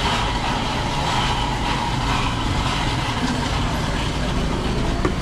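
Steady street traffic noise: vehicle engines running, with one short click just before the end.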